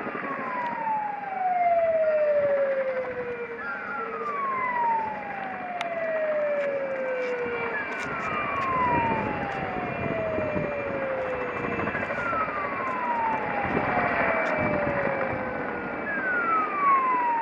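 A siren repeatedly sliding down in pitch, one long fall about every four seconds, over the steady noise of a low-flying PZL Mi-2 helicopter's rotor and turbines.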